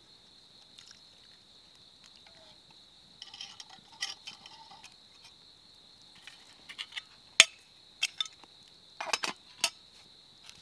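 Scattered clinks and taps of a utensil against camp cookware as coffee is made, in small clusters with the sharpest single clink about seven seconds in, over a faint steady high-pitched drone.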